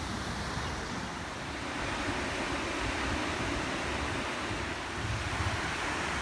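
Ocean surf washing onto a beach in a steady rush, with wind buffeting the microphone in low rumbles.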